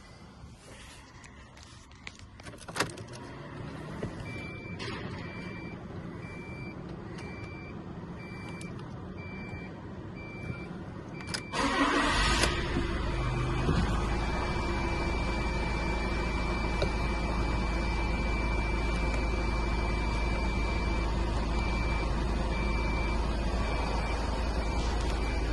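Ignition switched on in an Iveco Daily 35S14 van: a dashboard warning chime beeps steadily on and off, then about halfway through the starter cranks briefly and the 2.3-litre four-cylinder turbodiesel catches and settles into a steady idle, with the chime still sounding over it.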